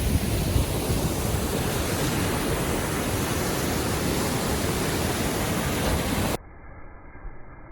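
Steady rushing of a partly iced-over waterfall, with wind buffeting the microphone. About six seconds in it cuts off abruptly to a much quieter, muffled sound.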